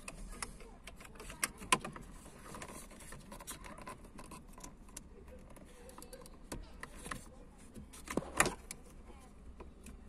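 Small plastic clicks and rattles from handling the Opel Vectra B light switch unit and its wiring connectors, with sharper snaps just under two seconds in and again about eight seconds in.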